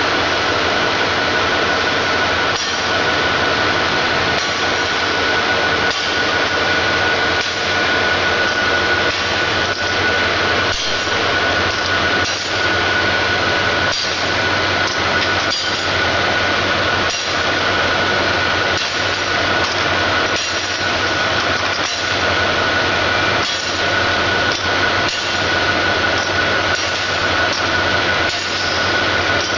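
Hinge edge polishing machine running: a steady mechanical grinding noise with a constant high whine, broken by irregular metallic clinks of steel hinges.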